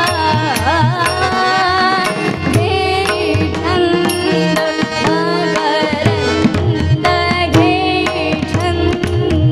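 Marathi bhajan music: tabla strokes keep a steady beat under sustained held notes and a melody that slides and ornaments in pitch.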